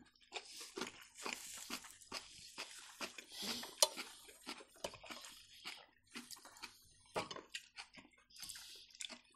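Close-miked chewing and eating of Napa-cabbage rolls: soft, irregular crunches and wet mouth noises, with one sharp click about four seconds in.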